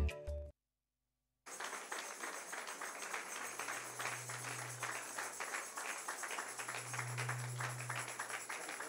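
Intro music cuts off, then after about a second of silence a church congregation claps in a large hall. Quick, close-packed claps go on throughout, with a low hum swelling twice underneath.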